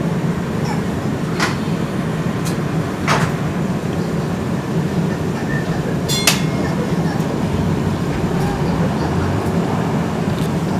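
A UTDC/Hawker Siddeley CLRV streetcar running along the track, heard from on board: a steady low rumble of motors and wheels on rail, with a few sharp clicks and knocks along the way, the loudest about six seconds in.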